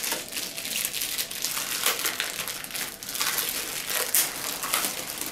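Plastic wrapping crinkling and crackling irregularly as it is pulled off a small speaker by hand.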